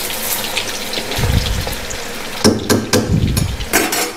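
Paneer cubes deep-frying in hot oil in a wok, a steady sizzle. From about halfway in, several sharp knocks and clatters of utensils or crockery break in.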